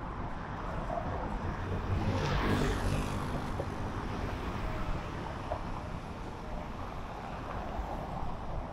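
Street traffic: a motor vehicle's engine passes close by, loudest about two and a half seconds in, over a steady hum of traffic.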